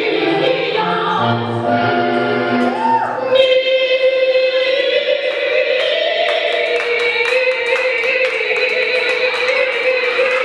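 A song with vocals in a gospel-like style. Accompanied music with moving bass notes gives way about three seconds in to a singer holding one long note, with a light ticking beat underneath.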